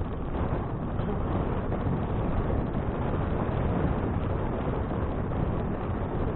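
Steady wind rushing over an action camera's microphone while riding a bicycle at speed, a constant low rumbling noise with no distinct events.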